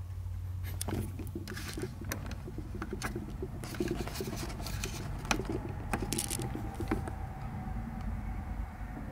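Footsteps and handling noise in a cluttered room: a scattered run of clicks, scrapes and light knocks starting about a second in, with the sharpest knocks between about five and seven seconds, over a low rumble.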